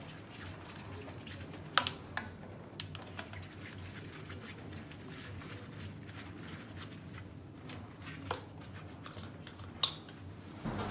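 Faint clicks and light metallic handling sounds of a compression tester's hose fitting being unscrewed from one spark plug hole and threaded into the next in an engine's cylinder head. A few sharper clicks stand out, about two seconds in and near the end.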